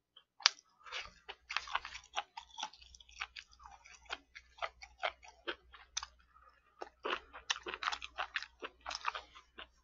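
Close-miked chewing and mouth sounds of a person eating with chopsticks: a dense, irregular run of short clicks and smacks.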